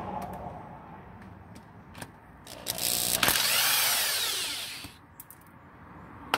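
Power drill backing out bolts on a 42RE automatic transmission's valve body to reach the 3-4 accumulator spring. It runs at a low hum with a few clicks, then about two and a half seconds in spins up loudly for about two seconds, rising and then falling in pitch.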